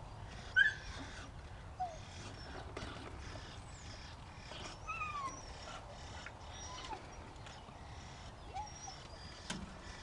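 Excited dogs whining in short, high, falling whines, the loudest about half a second in and another pair around the middle. Faint high bird chirps come between them.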